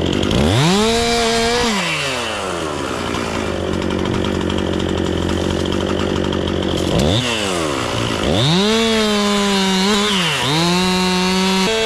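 Chainsaw revved to full throttle, eased back to idle, then revved again and held high, its pitch dipping briefly twice.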